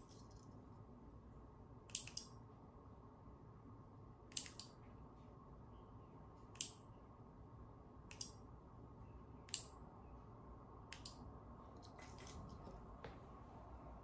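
Relay on a 2-channel RF remote receiver board clicking as it switches 220 V AC lamps on and off in momentary mode while the remote's buttons are pressed and released. The clicks are sharp and come every second or two, some in quick pairs.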